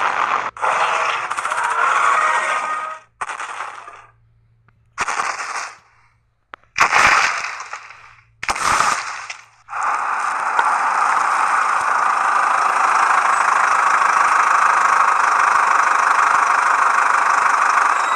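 Sudden loud crashing, breaking noises separated by brief gaps, then a steady hiss of noise lasting about eight seconds.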